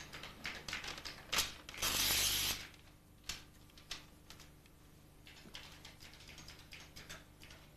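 Office machine sounds from a dot-matrix printer and computer keyboards: a run of small clicks and rattles, a harsh rasp lasting under a second about two seconds in, then fainter scattered tapping.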